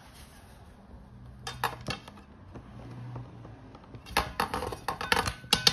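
Screwdriver turning a screw on a metal ceiling-box bracket: metallic clicks and scrapes, a few about one and a half seconds in and a denser run of clinking and rattling over the last second and a half.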